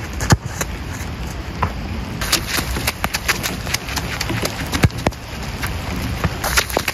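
A football kicked hard, a sharp thud about a third of a second in, then running footsteps on wet artificial turf and another sharp ball strike about five seconds in. A steady low wind rumble on the microphone lies under it all.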